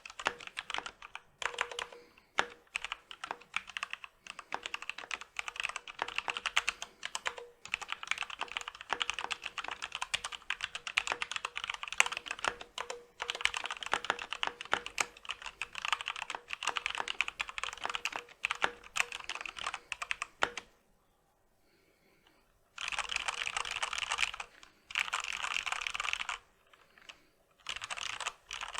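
Fast typing on a Corsair K65 RGB Rapidfire mechanical keyboard: Cherry MX Speed Silver linear switches under stock ABS keycaps, with the stock stabilizers greased. A steady clatter of keystrokes breaks off for about two seconds about three-quarters of the way through, then comes back in two dense runs.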